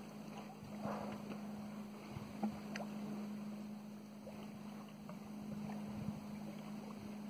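Steady low hum aboard a small boat, with faint wind and water noise and a few faint ticks.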